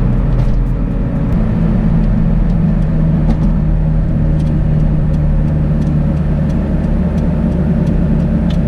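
Dodge Caliber SRT-4's turbocharged four-cylinder engine idling steadily, its aftermarket exhaust loud up close; the note shifts slightly about a second in.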